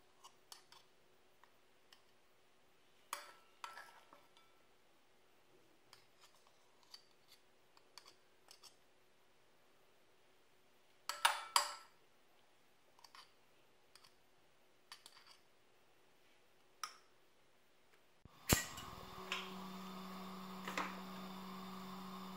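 Metal spoon clinking and scraping against a glass bowl and drinking glass while scooping whipped dalgona coffee onto milk: scattered light taps, with a cluster of sharper clinks midway. A steady hum begins near the end.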